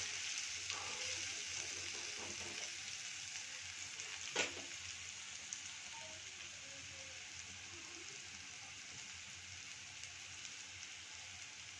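Sliced onions, cumin seeds and crushed garlic sizzling in hot oil in a kadhai, a steady hiss that slowly grows quieter. A single knock about four seconds in.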